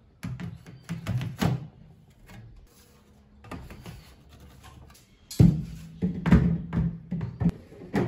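Background music with a drum beat, much louder from about five and a half seconds in, with a few light knocks in the first second and a half.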